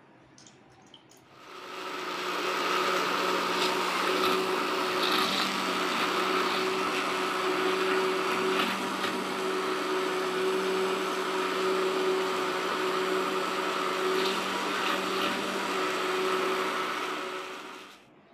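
Electric hand blender running in a steel pot, blending chikoo pieces with milk: a steady motor hum that starts about a second and a half in and stops shortly before the end.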